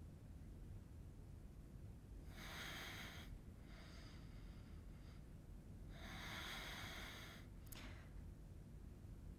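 Faint breathing of a woman holding a headstand: two longer breaths, about 2 s and 6 s in, with a softer one between them. A small click near the end.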